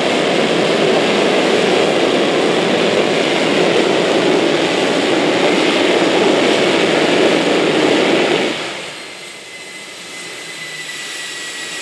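GE J79 turbojet running loud and steady at high power, then falling away sharply about three-quarters of the way through as it is throttled back. It then creeps up again slightly.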